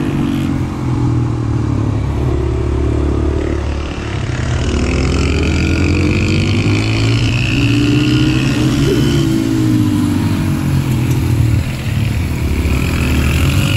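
Several small pit bike engines running hard, their pitch rising and falling over and over as the riders throttle up and back off around the track.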